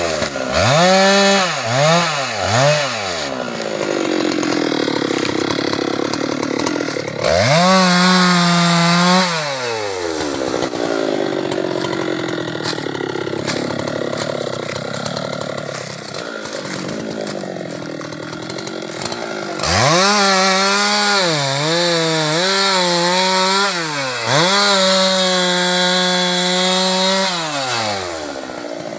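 Husqvarna 390XP two-stroke chainsaw revving: three quick throttle blips, a spell at idle, a short full-throttle run of about two seconds, a long idle, then about eight seconds at high revs with several dips in pitch before it drops back near the end.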